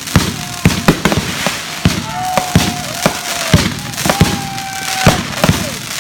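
Fireworks going off: a dense run of sharp bangs and crackles. From about two seconds in, several whistles sound among the bangs, each held about half a second to a second, some dropping in pitch as they end.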